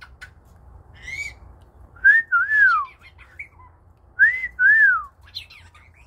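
Black-headed caique whistling: a short chirp, then the same two-note whistle twice about two seconds apart, each a quick rising note followed by a longer note that rises and falls.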